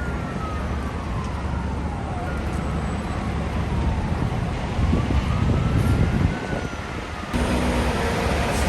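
FDNY Squad 288 fire truck's siren wailing slowly, one long fall in pitch and a long rise back up, over heavy truck-engine and traffic rumble that grows louder midway. Near the end the sound changes abruptly to a steadier, louder mix of low tones and traffic.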